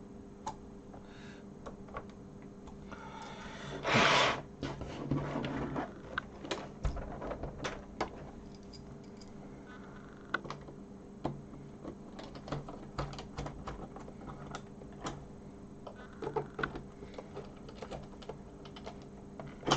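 Scattered small plastic clicks and taps from Sinclair QL microdrive cartridges being handled and looked over. About four seconds in there is a brief louder rustling scrape. A faint steady hum runs underneath.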